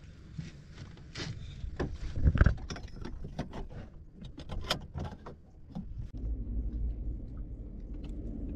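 A run of short clicks, knocks and light rattles from a fishing rod and spinning reel being handled in a small boat, with one louder thump a little over two seconds in. From about six seconds a low steady rumble takes over.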